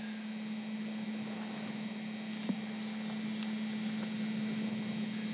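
Steady low hum with an even hiss behind it, and one faint click about two and a half seconds in.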